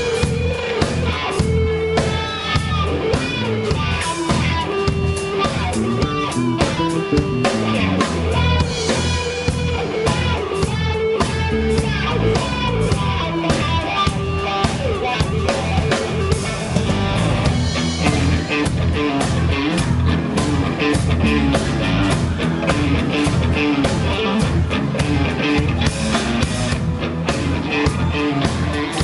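Live rock band playing amplified electric guitars over a drum kit, with a steady beat.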